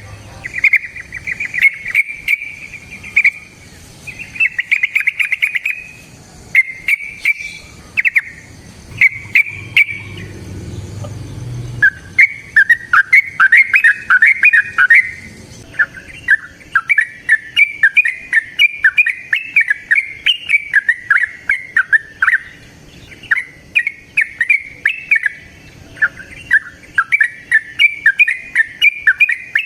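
Yellow-vented bulbul (trucukan) singing a long run of bubbly, warbling phrases, with many sharp ticks between notes. The song pauses briefly about a third of the way in, then runs on denser and louder.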